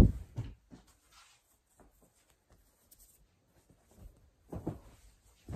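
Towels being folded and laid down on a table: a heavy thump right at the start with a couple of lighter knocks after it, faint fabric rustling, then more dull thumps about four and a half seconds in and near the end.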